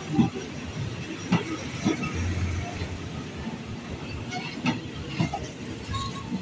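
State Railway of Thailand passenger coaches rolling past at low speed: a steady rumble with wheels knocking irregularly over the rail joints.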